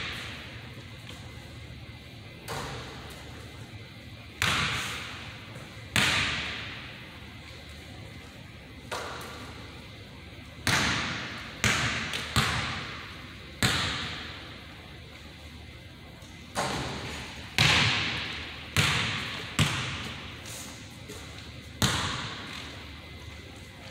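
A basketball thudding on a hardwood gym floor and being caught and passed: about a dozen irregularly spaced hits, each followed by a long echo in the big hall.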